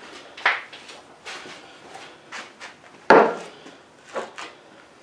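Scattered knocks and clicks of tools and parts being handled while a push mower is reassembled, the loudest knock about three seconds in.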